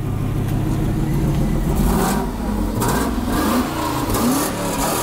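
Mercedes-AMG 5.5-litre V8, swapped into a Chevrolet Suburban, revved several times through its largely original exhaust, the pitch climbing and falling with each blip.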